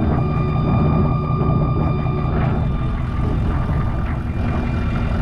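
GM 6.5L turbo diesel V8 running steadily, its deep diesel rumble topped by a steady high-pitched turbocharger whistle.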